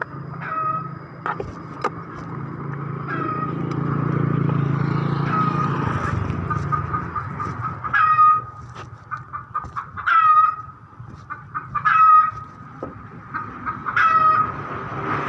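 A small domestic animal calling over and over, short hooked calls about once every two seconds. A low hum swells and fades in the first half.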